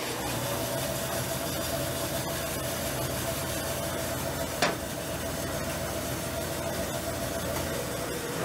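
Vertical bandsaw running free with no cut, a steady motor-and-wheel hum with a clear tone, on a test run after a new tire was fitted to its wheel. About halfway through, a single sharp knock as the wheel door is shut, and right at the end the hum begins to drop in pitch as the saw is switched off and coasts down.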